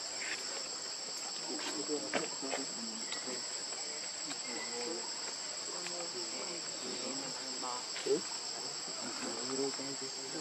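Steady, high-pitched drone of an insect chorus, with faint scattered chirping sounds lower down and a brief louder sound about eight seconds in.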